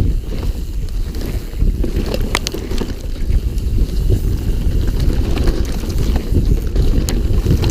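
Wind buffeting the microphone on a moving mountain bike: a loud, steady low rumble, with scattered sharp clicks and rattles from the bike over rough ground.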